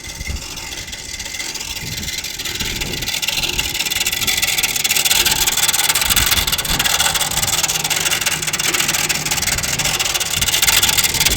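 Air conditioner outdoor unit running with a loud, fast rattling rub noise that grows louder over the first few seconds and then holds steady. The noise comes from a loose nut on the unit.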